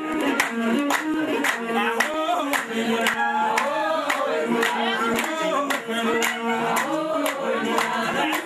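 A group of voices singing together with rhythmic hand-clapping, about two sharp beats a second, over held instrumental notes.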